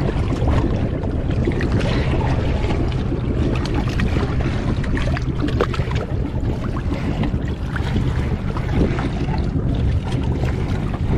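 Choppy water lapping and splashing around a camera held at the waterline, with many small crackling splashes over a steady low rumble of wind on the microphone.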